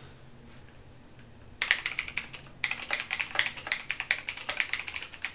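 Fast typing on a mechanical keyboard with clicky blue-type switches, which start about a second and a half in after a quiet moment. There is a brief pause a second later before the typing picks up again.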